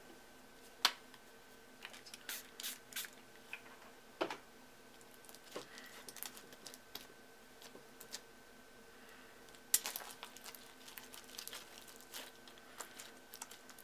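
Hands kneading and pulling a sticky slime full of soft spongy beads on a countertop: faint, scattered squishes and sticky clicks, with a few sharper clicks along the way.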